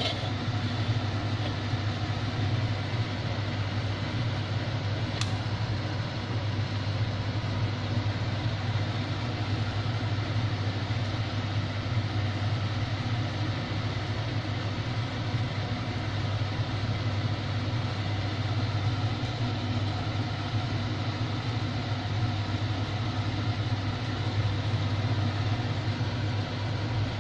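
Steady low hum with an even rushing noise over it, from the gas stove and kitchen while oil heats in a wok, with no sizzling from the oil yet. One faint click about five seconds in.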